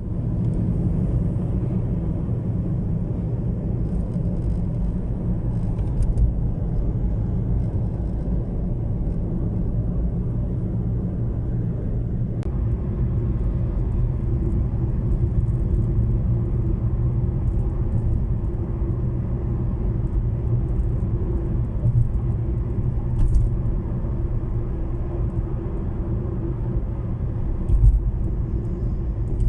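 Car driving on a road: a steady low rumble of tyres and engine, whose character changes about twelve seconds in.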